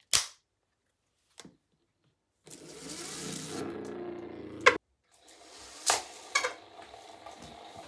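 Homemade LEGO spinners, rubber-tyred wheels on LEGO spring motors, whirring steadily as they spin on a hard surface, in two stretches a couple of seconds long. Several sharp clicks and knocks break in, the loudest near the end of the first stretch.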